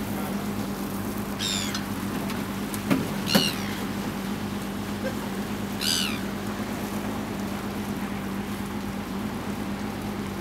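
Gulls calling three times, each a short, high, falling cry, over a steady low engine hum. Two sharp knocks come about three seconds in.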